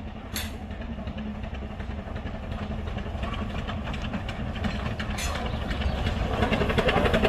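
Narrow-gauge steam train approaching: the locomotive and its coaches running towards the listener, the rumble and clatter of the wheels growing steadily louder.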